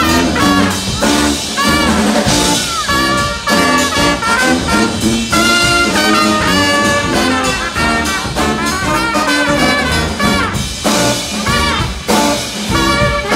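Live brass band playing: trumpet, saxophone and trombones together in a lively tune, with a short break near the end.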